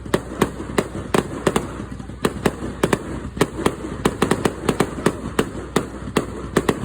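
Aerial fireworks going off in a rapid barrage: sharp bangs at about two to three a second, with crackling between them.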